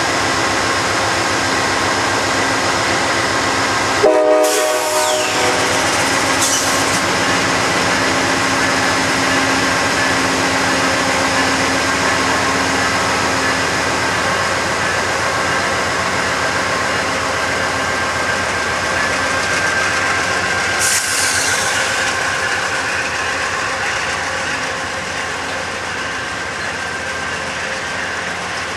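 Amtrak diesel-hauled passenger train with bi-level cars rolling past the platform: a steady rumble of the locomotives and wheels on the rails. A short horn blast sounds about four seconds in.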